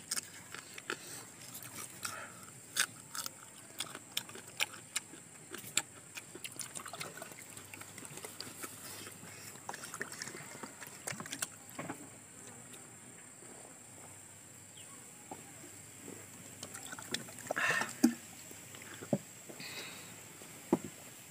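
Quiet eating and handling noises: scattered small clicks and taps of mouths and of a bottle and glass on the table, with water poured from a plastic bottle into a glass partway through. One sharper, louder noise comes about three-quarters of the way in, over a thin steady high hiss.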